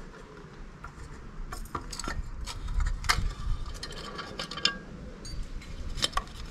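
Hex key turning a small screw in a motorcycle silencer's plastic end cover: scattered light metal clicks and scrapes, then plastic rubbing as the loosened cover is pulled off near the end.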